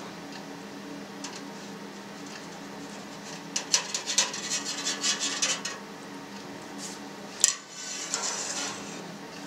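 Stainless steel wire cheese harp clinking and scraping against the walls of a stainless steel pan as it is drawn through set curd, cutting it into cubes: a run of rattling clinks in the middle and one sharp metallic clink near the end, over a faint steady hum.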